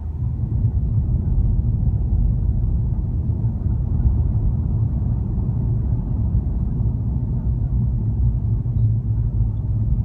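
Steady low rumble of a car driving, heard from inside the cabin: engine and road noise, a little louder from the start.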